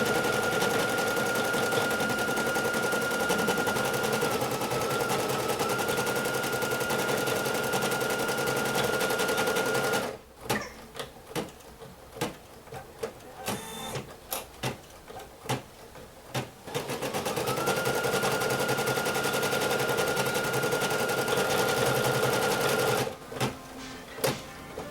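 Computerized embroidery machine stitching at speed: a steady rapid needle clatter with a constant motor whine. About ten seconds in it stops, leaving only scattered clicks. It then speeds back up with a rising whine, runs steadily again and stops once more near the end.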